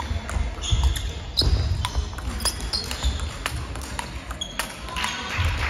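Large-ball table tennis rally: the 44 mm ball clicks off the rubbers and the table at an irregular pace, with more clicks from nearby tables and footfalls in a busy sports hall.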